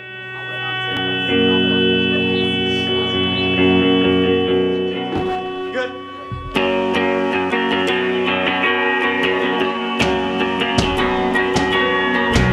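Rock band playing live, led by electric guitars. Held guitar chords swell up from silence, then the whole band comes in louder about six and a half seconds in, with sharp drum hits.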